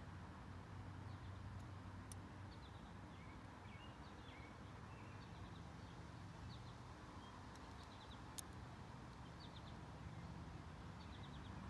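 Quiet outdoor background with a faint low rumble and small birds chirping now and then in short bursts of three or four notes. A single sharp click comes about eight seconds in.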